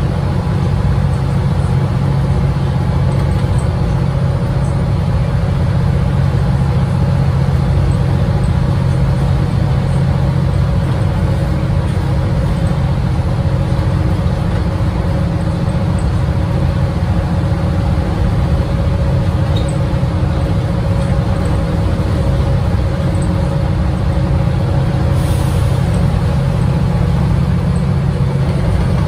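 Renault PR100.3 bus under way, heard from inside the cabin: its 9.8-litre six-cylinder turbodiesel runs at a steady pitch with a low hum, over road noise.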